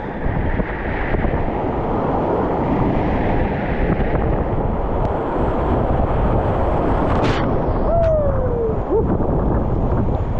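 Whitewater rapids rushing loudly around a kayak, with water and wind buffeting the camera microphone. There is a sharp knock about seven seconds in and a short falling tone about a second later.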